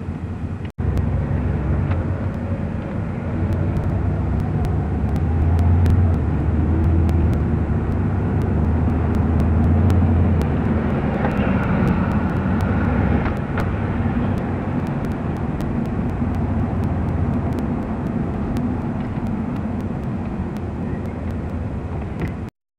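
Traffic noise heard from inside a moving car: steady engine and tyre rumble with passing vehicles, louder for a few seconds in the middle. The sound drops out for an instant about a second in and cuts off abruptly near the end.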